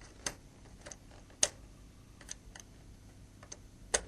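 Scattered small, sharp clicks, about six spread over the few seconds, of small tools and plastic parts knocking together as a Nokia 6220 mobile phone's C cover is worked apart by hand.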